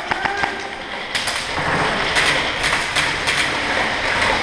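Irregular sharp snaps and clicks, about a dozen over three seconds, from airsoft guns firing and BBs striking, over a steady background din.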